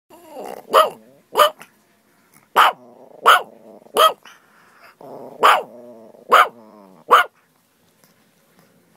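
Small white long-haired dog barking, eight sharp barks in about six seconds, with growling between them, then falling quiet about seven seconds in.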